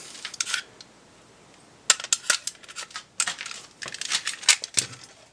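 Short steel transfer punches clicking and rattling in their metal stand as the set is handled and turned over: light metallic clicks in a few spells, a quiet gap after the first, then a denser run in the second half.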